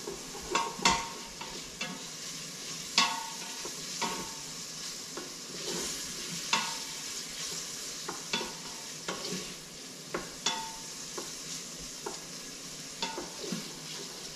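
Chopped bacon sizzling as it browns in an Instant Pot on sauté, a steady frying hiss. A utensil stirring against the pot adds irregular sharp clicks and scrapes.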